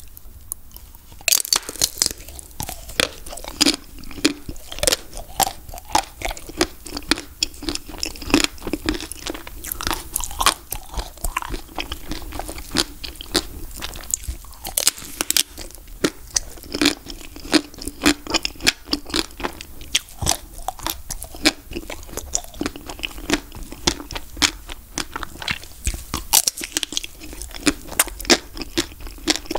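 Magnum Ruby ice cream bar's pink ruby-chocolate shell cracking as it is bitten and chewed, with many sharp crunches starting about a second in.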